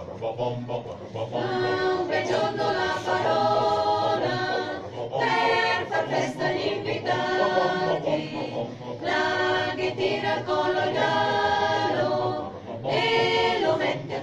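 Small choir singing unaccompanied, in several phrases of held notes with short breaks between them.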